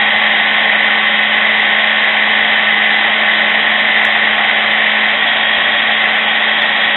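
Countertop food processor running continuously, its blade grinding roasted pork into a thick paste. The motor makes a steady high whine over a low hum.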